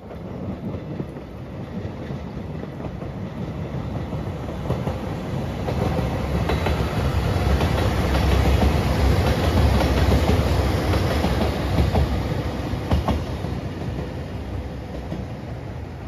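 JR Shikoku 2700 series diesel limited express train passing. The rumble builds as it approaches, is loudest with wheels clicking over the rail joints about eight to twelve seconds in, then fades as it runs away.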